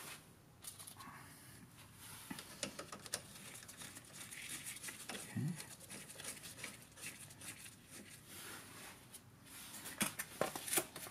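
Faint rustling and scattered light clicks of hands fitting hardware onto a golf cart's rear shock absorber mount, the clicks coming a little more often near the end.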